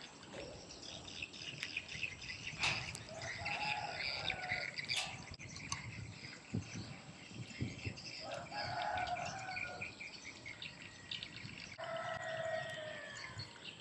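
A rooster crowing three times, each crow lasting about a second and a half, with smaller birds chirping and a couple of sharp knocks in the background.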